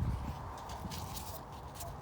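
Faint scattered clicks and light knocks of a screwdriver and small carburetor parts being handled during reassembly.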